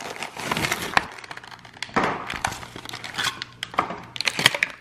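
A stiff plastic blister pack being pried open and torn off its cardboard card: a run of sharp crackles and snaps of the plastic, mixed with rustling.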